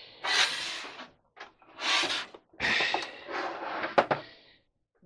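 A metal Lenovo H410 desktop computer case being shifted and laid on its side on a wooden desk: several bursts of scraping and handling noise, with a sharp knock about four seconds in.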